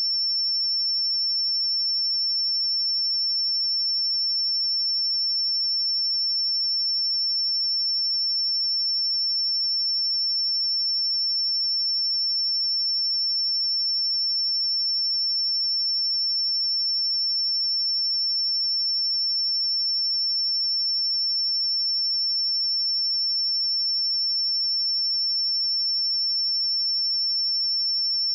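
A pure 5406 Hz sine-wave test tone, held steady at one high pitch and constant loudness.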